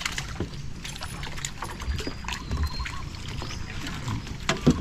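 Water splashing with scattered sharp slaps and knocks, as fish thrash in a net being hauled in and scooped out of a brush-pile trap in a canal.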